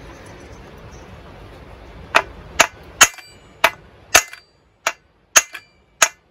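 Small hammer striking the loosely refitted flywheel nut on the crankshaft of a Stihl MS170 chainsaw, to shock the flywheel off its taper. There are eight sharp metallic blows, starting about two seconds in and coming roughly two a second, each with a short ring. The flywheel has not yet come free.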